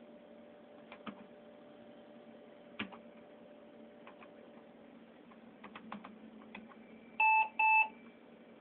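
Two short electronic beeps in quick succession near the end, from the HP Kayak XM600 workstation, over a steady low hum, with a few faint clicks before them.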